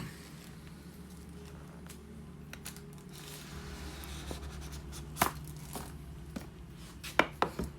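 Phone packaging being handled: soft crinkling and tearing of plastic or paper wrap, with a sharp click about five seconds in and three quick clicks near the end, over a faint steady hum.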